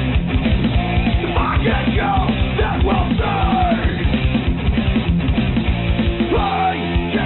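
Punk rock soundtrack music with drums, guitar and vocals.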